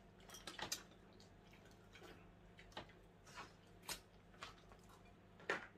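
Faint, irregular small clicks and taps, about nine of them, over a low steady hum; the loudest comes near the end.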